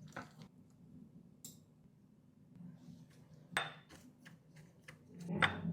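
Kitchen utensils and dishes clinking and knocking a few times while food is prepared, the loudest knock near the end, over a low steady hum.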